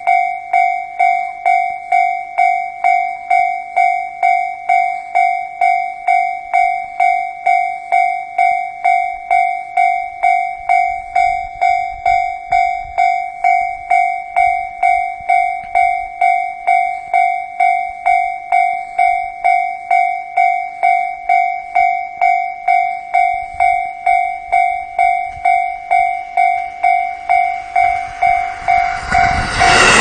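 Japanese electronic level-crossing warning bell ringing steadily at about two to three strokes a second. Near the end, a KiHa 54 diesel railcar arrives and passes the crossing, its loud rushing rail noise rising over the bell.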